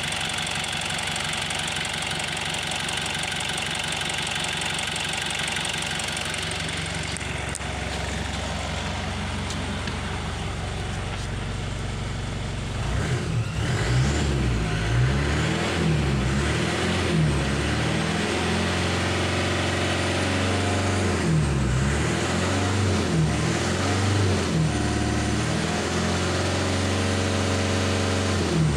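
Toyota 1KZ 3.0-litre turbo diesel idling steadily, then, from about 13 seconds in, revved up and down again and again, reaching around 3,000 rpm.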